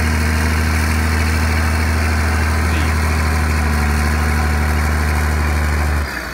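Diesel engine of an old Caterpillar wheel dozer running steadily with a deep, even hum as the machine pushes soil with its front blade. The sound drops off sharply about six seconds in.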